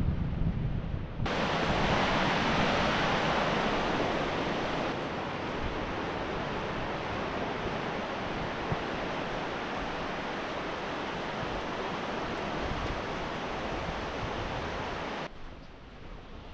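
Ocean surf washing onto a beach, a steady hiss of breaking waves that starts abruptly about a second in and cuts off near the end, with low wind rumble on the microphone before and after.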